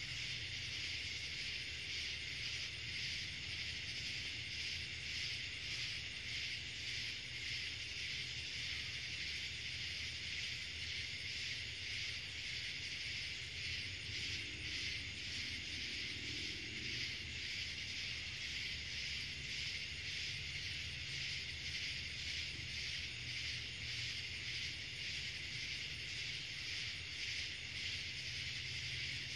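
Steady chorus of night insects, pulsing rapidly and evenly, over a low steady rumble.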